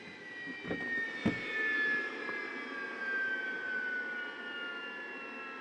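Jet trainer's turbine engine spooling down after shutdown: a whine of several tones falling slowly in pitch over a steady rush, with two short knocks in the first second and a half.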